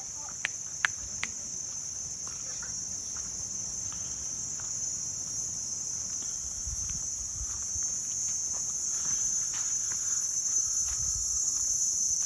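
Steady, shrill chorus of tropical forest insects droning without a break, growing gradually louder. Three sharp clicks come between about half a second and a second and a quarter in, with a few soft low thuds later.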